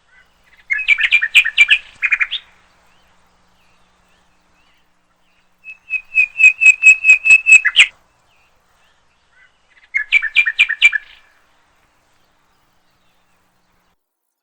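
Small songbird in a tree singing three short phrases of rapid, evenly repeated chirping notes, about four or five a second. The phrases come a few seconds apart, with silence between them.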